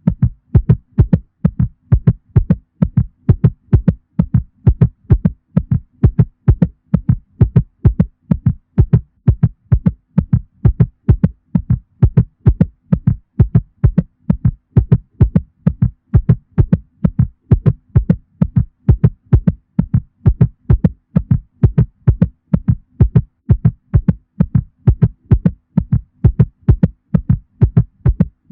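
Heartbeat sound effect presented as a mother cat's heartbeat: loud, low thudding beats repeating in a steady, even rhythm with no change in pace.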